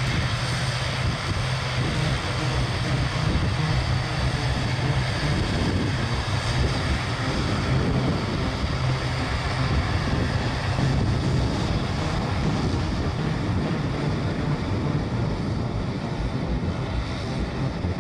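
CASA C-295's twin Pratt & Whitney PW127G turboprops at takeoff power: a steady propeller drone with a low even hum under a broad roar as the aircraft rolls, lifts off and climbs away. The level eases slightly near the end.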